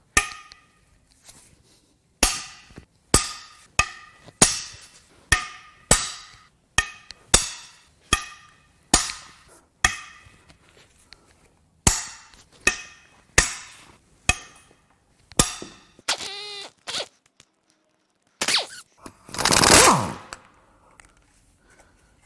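An impact wrench hammers at a cylinder head bolt of a Jaguar Land Rover 5.0-litre supercharged AJ V8 to break it loose, in short, sharp, ringing bursts about one every three-quarters of a second. Near the end there is a brief rising whir, then one longer, louder burst.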